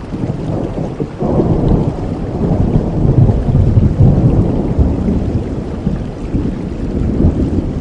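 A long roll of thunder over steady rain: the rumble builds suddenly about a second in, is loudest midway, and slowly dies away near the end.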